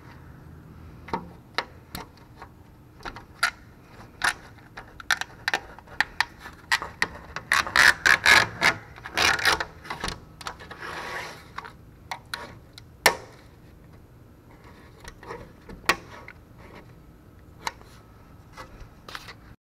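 Hand tools working an aluminium window sash as the outside glazing is pried out: a long run of sharp metal clicks and taps, a busy stretch of scraping and rasping around the middle, and one loud click a few seconds later.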